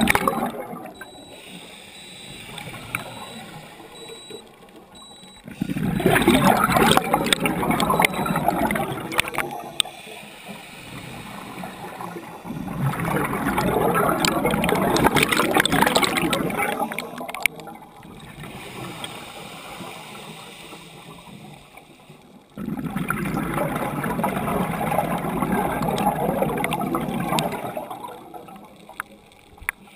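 Scuba diver breathing through an open-circuit regulator underwater: exhaled bubbles rush loudly out of the regulator exhaust three times, each for a few seconds, with quieter crackling stretches between the breaths.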